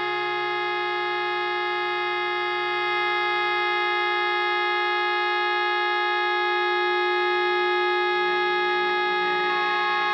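Droning electric guitar music: many steady held tones layered into one sustained chord, with a few tones shifting near the end.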